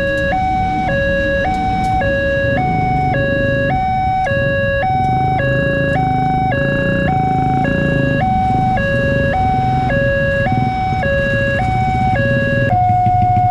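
Railway level-crossing warning alarm from a pole-mounted horn loudspeaker: an electronic two-tone signal alternating high and low about once a second, over a low rumble of engines. Near the end the alternating stops and a single steady tone is held.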